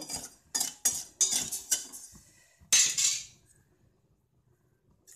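Steel ladle scraping and knocking against a stainless steel pot while stirring wet sugar, several short knocks followed by one longer, louder scrape about three seconds in, then it stops.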